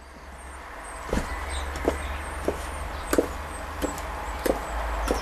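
High-heeled shoes clicking on patio paving stones as someone walks, about one and a half steps a second, starting about a second in.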